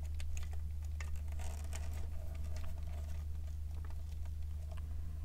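Faint, irregular clicks and scratchy ticks of small plastic model-kit parts being handled and a screw being worked in, over a steady low hum.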